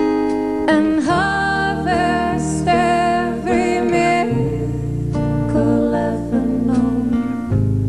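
Live folk-rock band music led by acoustic guitar, with a long wavering melody line carried over it through the first half before the accompaniment settles into steady held chords.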